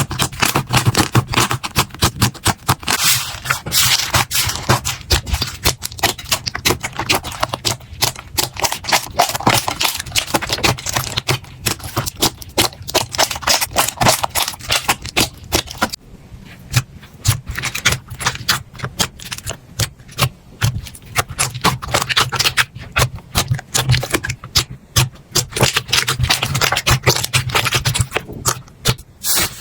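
Slime being squeezed, pressed and poked by hand, giving a rapid, irregular stream of crackles and sticky pops, with a brief quieter lull about halfway through.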